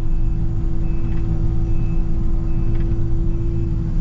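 Excavator engine running steadily under load, a low rumble with a constant hum over it, and faint ticks about every second and a half.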